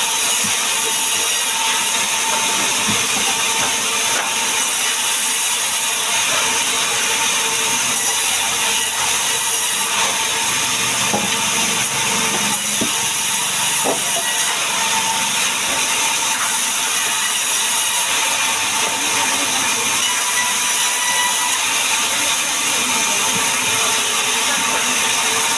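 Sawmill band saw running steadily while logs are pushed through it and ripped lengthwise, with a few brief knocks near the middle.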